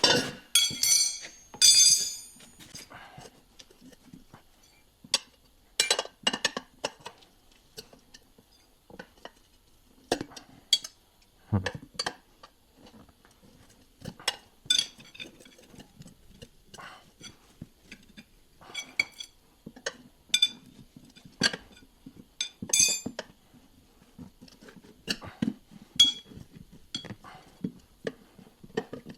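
Irregular metallic clinks and clanks of tire-changing tools against a steel wheel rim and tire machine as a new mower tire is worked onto the rim, with the loudest, ringing clangs in the first two seconds.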